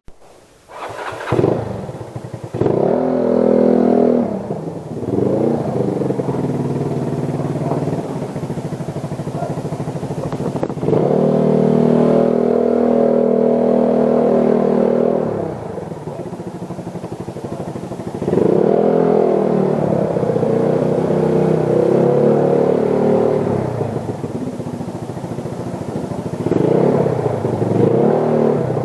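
Motorcycle engine running under way, rising in pitch as it accelerates and dropping back several times.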